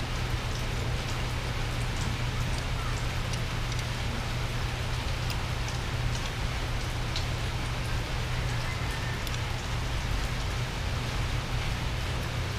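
Steady hiss of rain falling on a hard surface, with a low steady hum underneath. Scattered faint small clicks come from motorcycle drum-brake shoes being worked onto the backing plate.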